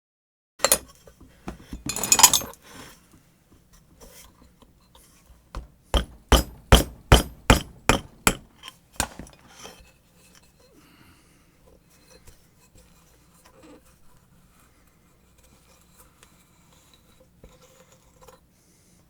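Metal clinking and knocking from hands and tools working on a submersible pump motor: a couple of clatters in the first few seconds, then a quick run of about ten sharp taps, roughly three a second, followed by faint handling noise.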